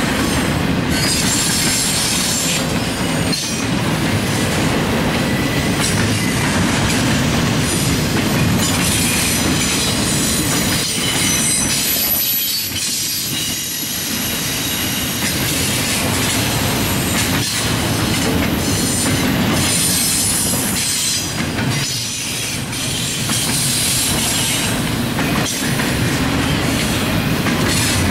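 Norfolk Southern double-stack intermodal freight train rolling past close by: a steady rumble of steel wheels on rail, with high, thin wheel squeal over it and a few sharp knocks from the cars.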